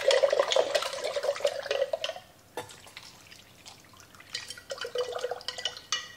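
Salt brine poured from a glass jar through a stainless steel canning funnel into a jar packed with sliced red onions, splashing and trickling in two pours with a short pause and a light knock between them. This is the brine going onto the onions for fermenting.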